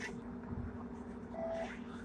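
Hong Kong double-decker electric tram running, heard from on board as a steady hum, with one brief higher tone about three-quarters of the way through.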